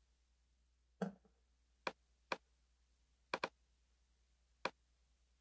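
Computer mouse clicks on a quiet background: about five separate sharp clicks and a quick double-click near the middle. The first click comes with a soft low thump.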